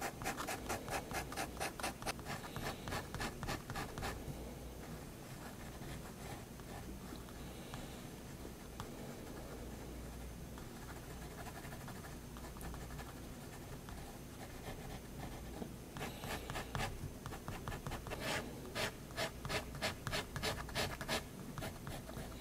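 Staedtler 0.3 mm pigment liner scratching on sketchbook paper: quick runs of short hatching strokes, several a second, in the first few seconds and again from about sixteen seconds in, with slower, quieter line work in between.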